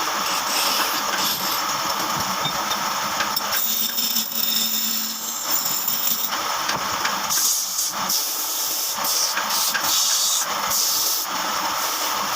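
Woodworking power tool running steadily with a hiss.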